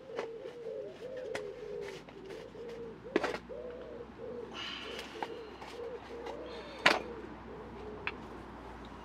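A pigeon cooing over and over in short arched calls, with a couple of sharp clicks or knocks from gear being handled, the loudest about seven seconds in.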